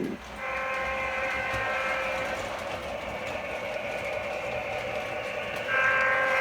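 Model locomotive's onboard sound unit sounding a multi-note train chime twice, over steady running noise. The first blast is about two seconds long and the second starts near the end.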